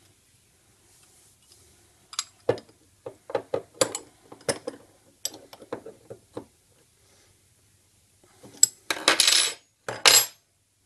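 Steel spanners clicking and clinking against the brass fitting and metal body of a fuel pressure gauge while the fitting is tightened: a string of short, sharp metallic ticks, then two longer, louder metal clatters near the end.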